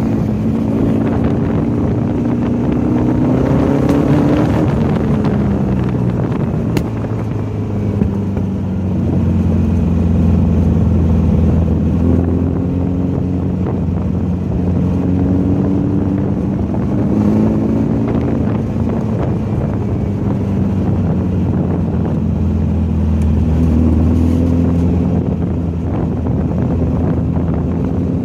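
Volkswagen race car's engine running hard on track, its pitch climbing under acceleration and falling back several times as it shifts and brakes for corners.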